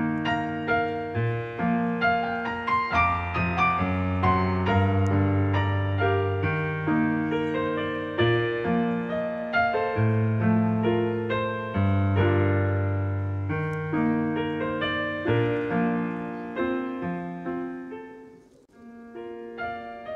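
Background piano music: a slow melody of held notes. Near the end it fades almost to nothing, then starts again.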